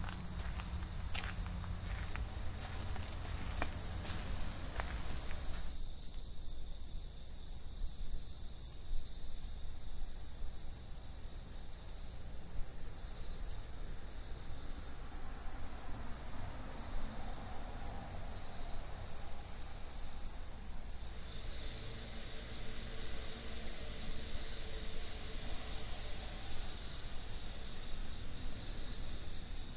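Bell crickets (suzumushi) singing, a steady high ringing chorus with no break.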